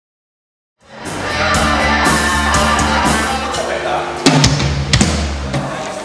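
Band music with a drum kit comes in abruptly about a second in, with a couple of sharp, loud drum hits about halfway through.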